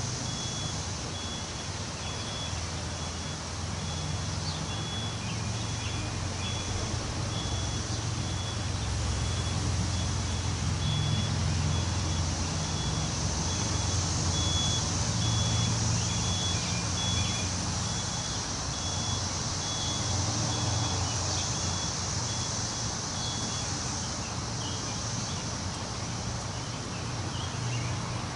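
Wind rustling through trees, swelling and easing in gusts over a low rumble. A thin, high, single-pitched peep repeats about once a second and stops near the end.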